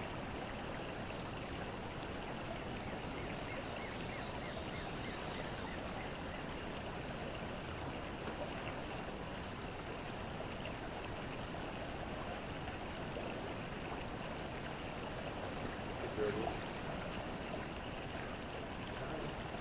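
Small creek's water flowing steadily.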